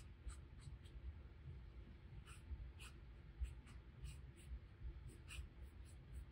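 Faint, short scratches of a watercolor brush dabbing and stroking paint onto textured watercolor paper, a dozen or so small strokes at irregular intervals.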